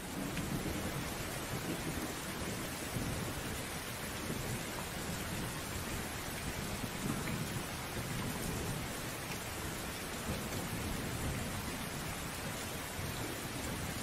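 Heavy rain pouring steadily, with a low rumble of thunder rising and falling under it.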